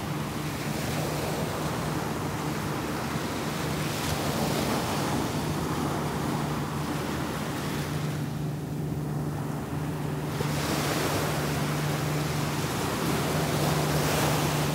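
Small ocean waves washing up onto a sandy beach, the surf swelling and easing a few times, over a steady low engine hum.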